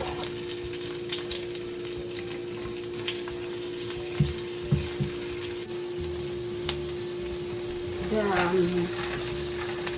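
Chopped onions and garlic sizzling in olive oil in a frying pan while being stirred, with a few knocks of the utensil against the pan about four to five seconds in. A steady hum runs underneath.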